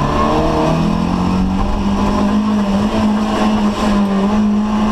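Rally car engine heard from inside the cabin, its note climbing in the first half-second and then held at high revs under acceleration, with a few brief dips in pitch.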